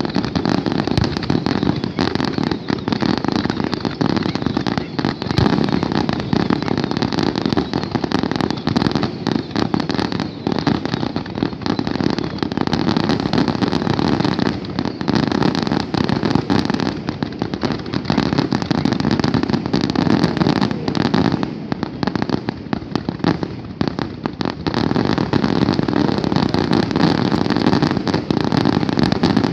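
Fireworks display firing a continuous barrage: a dense, unbroken run of bangs and crackling with no pauses.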